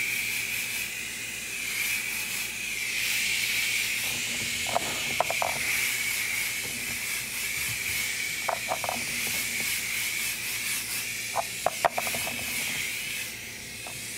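Airbrush hissing steadily as it sprays paint, with a faint whistle in the air stream, held well back from the piece for a light coat. A few light clicks sound around the middle and near the end.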